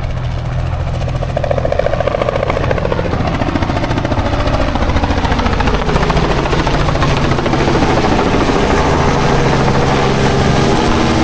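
Helicopter flying in low and close, its rotor beating steadily and loudly throughout.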